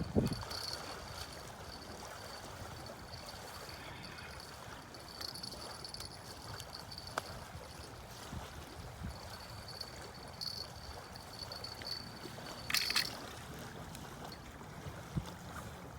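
Water lapping and trickling at the fishing spot, with a faint high steady tone that fades in and out, and a brief scrape or rustle about 13 seconds in.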